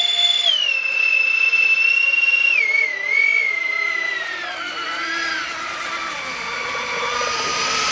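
Electric motor of a 36-inch Blacksheep High Voltage Cat RC speedboat running flat out on a 4S battery, a high whine. It drops in pitch about half a second in, then keeps stepping lower, ending at about a third of its starting pitch, with a brief rise just before the end.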